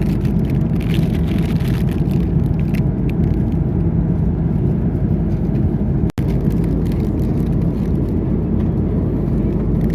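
Steady low rumble of jet engines and rushing air inside an airliner cabin, with a few faint ticks. It drops out for an instant about six seconds in.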